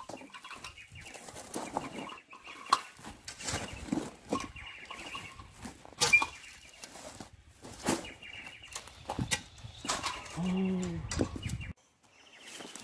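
Steel shovel digging into dry, rocky dirt: repeated scrapes and knocks as the blade bites and lifts soil, with birds chattering in the background.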